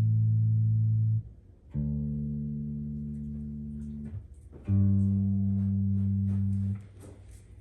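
Sterling SUB4 StingRay electric bass guitar playing long sustained single notes. A held note stops about a second in, then two more notes follow, each lasting about two seconds, with short gaps between them.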